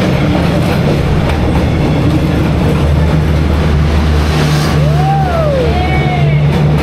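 Train running past with a steady low rumble. Background music with a singing voice that glides up and down lies over it, most plainly near the end.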